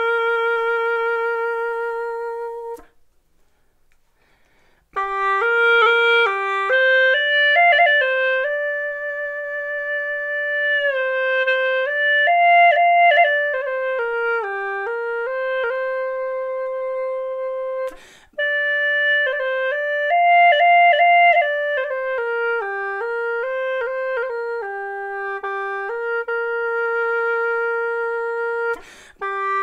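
Hulusi (Chinese gourd free-reed flute) played solo: a slow single-line melody of long held notes and stepwise runs. It opens on a held note with vibrato, with a short pause about three seconds in and brief breaks later on.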